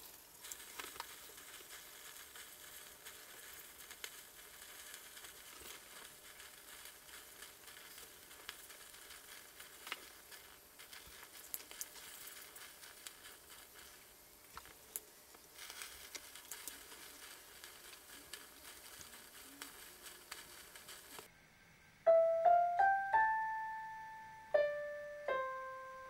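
Faint hiss with scattered small crackles as a chain of matchsticks burns. About four seconds before the end a short keyboard jingle comes in, much louder: a quick run of rising piano-like notes, each ringing and fading, then a few held notes.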